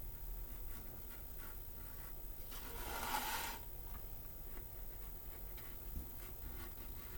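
Knife cutting through a sheet of gasket material: a run of short scratches, with one longer, louder cut about two and a half seconds in.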